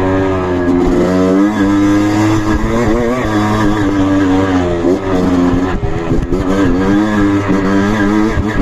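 Trail motorcycle engine running under changing throttle, its pitch rising and falling over and over.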